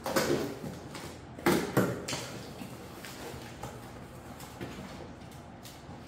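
Scraping and knocking from hands working on a folding electric bike. There is a burst right at the start and two sharper knocks about a second and a half in, then only a few faint clicks.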